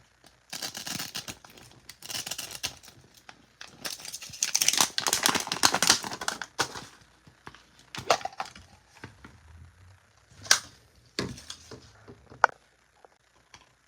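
Crinkly plastic packaging being handled and torn open in bursts of crackling rustle, then a few separate sharp plastic clicks and taps as small pieces are handled.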